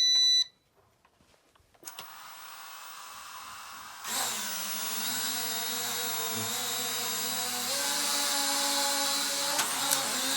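A short electronic beep, then about four seconds in the mini drone's small motors and propellers spin up to a steady buzzing whine as it flies, the pitch stepping slightly about eight seconds in.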